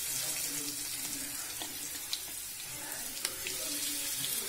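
Breaded onion rings frying in hot oil in a pan: a steady sizzle with scattered small crackles and pops.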